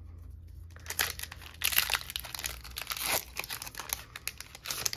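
Foil Pokémon booster-pack wrapper crinkling and tearing open, in irregular crackles that start about a second in and are densest around two seconds.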